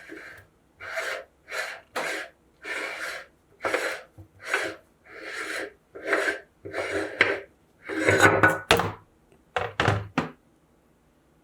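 Meat grinder crunching and rasping through a chocolate pista ice cream cone in about a dozen short grinding strokes, which stop near the end.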